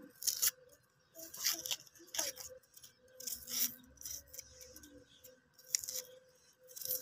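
A knife scraping and peeling dry, papery skin off onions: a string of short, irregular crackles and rustles.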